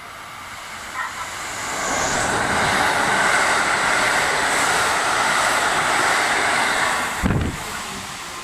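A JR Central KiHa 85 series diesel multiple unit, powered by Cummins diesel engines, passing through the station at high speed without stopping. Its engines and wheels on the rails build to a loud rush, hold it for about four seconds, then fade as the train clears, with a short low thump near the end.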